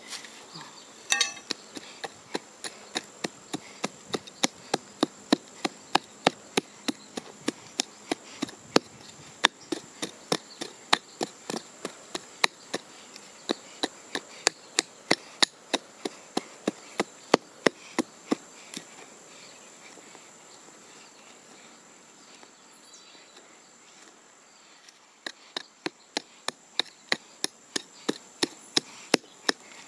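Small hand pick chopping repeatedly into dry, compacted soil, about two sharp strikes a second, with a short pause about two-thirds of the way through. Behind it runs a steady high insect buzz.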